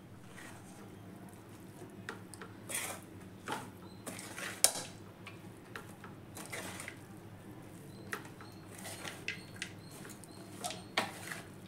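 Wooden spatula scraping against a metal kadai and turning over cooked rice while mixing it with mango gojju: soft, irregular scrapes and scuffs.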